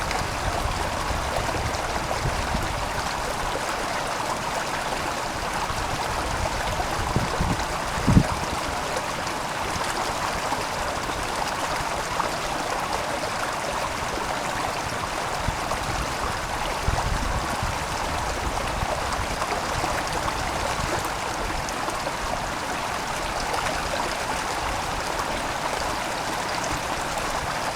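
Steady rush of flowing water, with a couple of low knocks about seven and eight seconds in.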